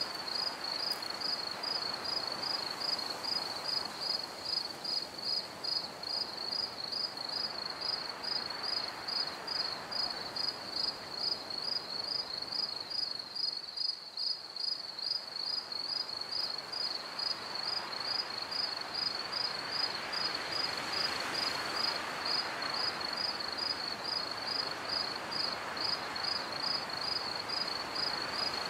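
Crickets chirping steadily in an even rhythm, about two high chirps a second, over a soft rushing background that dips and then swells again.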